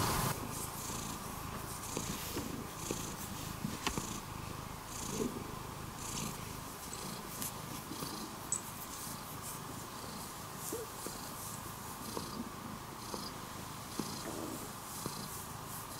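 Domestic cat purring steadily while being stroked, the purr rising and falling in an even rhythm.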